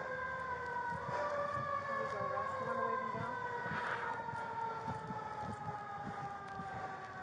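An emergency vehicle's siren sounding one long, drawn-out tone that falls slowly and steadily in pitch. Soft low knocks come and go underneath it.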